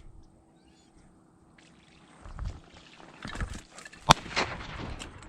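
A shotgun shot fired at ducks, one sharp loud crack about four seconds in with a smear of echo after it, preceded by a few dull thumps of movement.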